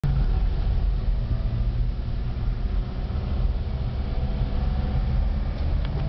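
Car driving along a dirt road: steady low rumble of tyres and engine.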